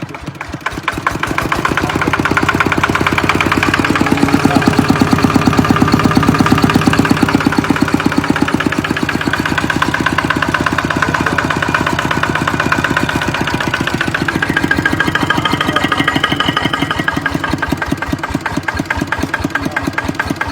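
Kubota ET80 walking tractor's single-cylinder diesel engine running with an even, rapid beat, speeding up about a second in and easing back toward idle in the last few seconds.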